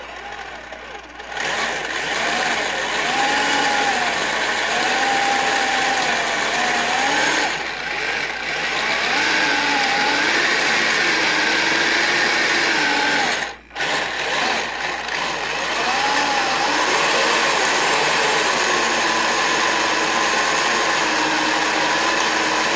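Kyosho Blizzard RC snowcat's electric drive and running gear whirring as it is driven, with a whine that rises and falls with the throttle. It stops for a moment about fourteen seconds in, then runs on.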